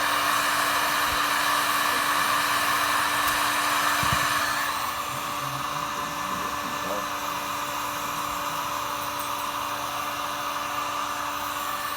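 Electric heat gun running with a steady fan hum and rush of air while heating a powder-coated spinner blade. The noise drops noticeably about four and a half seconds in and carries on more quietly.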